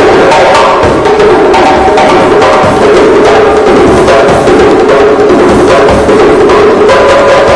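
Two djembes played by hand together in a loud, steady rhythm of many strokes a second.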